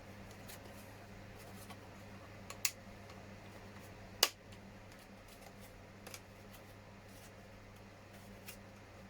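A few short, sharp clicks of hard injection-moulded plastic model parts being handled and fitted, the two loudest about two and a half and four seconds in, over a faint steady low hum.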